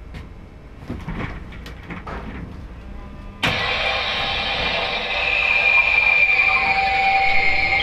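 A few faint knocks, then about three and a half seconds in a click and a sudden loud, steady noise with a high tone running through it: the jumping-spider prank prop going off as the chair it is set on is moved.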